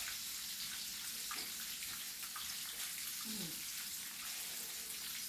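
Chicken pieces frying in hot oil: a steady sizzle.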